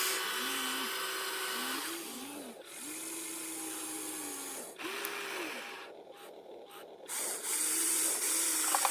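Small electric motors of radio-controlled construction models whining over a steady hiss, the pitch rising and falling in short sweeps as the controls are worked. It goes quieter for about a second near the middle of the back half, then picks up again.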